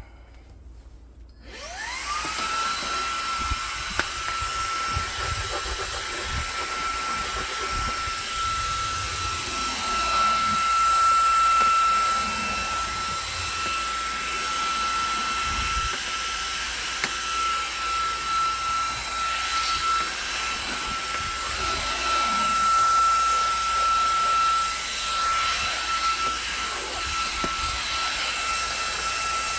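Xiaomi mini cordless vacuum cleaner switched on about a second and a half in, its motor whine rising quickly to a steady high pitch and running on with a rushing hiss of air, with a few small knocks as it is worked along.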